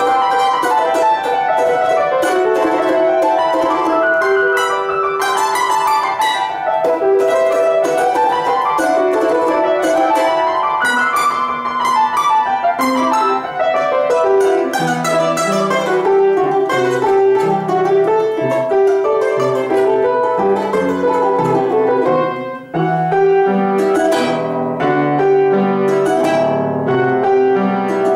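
Balalaika played fast, with quick plucked and strummed runs rising and falling, and piano accompaniment adding low bass notes from about halfway through. There is a brief break about 22 seconds in.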